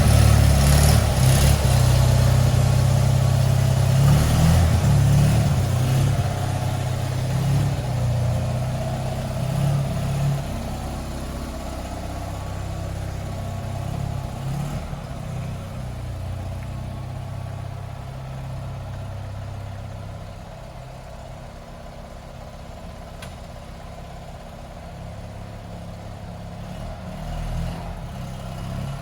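Fiat 500's small air-cooled two-cylinder engine running at idle after a tune-up, louder for about the first ten seconds, then quieter.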